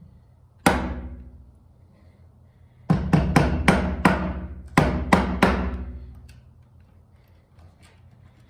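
A series of about nine hammer blows on wood, each ringing out briefly with a low resonance. There is a single blow first, then a quick run of five, then three more.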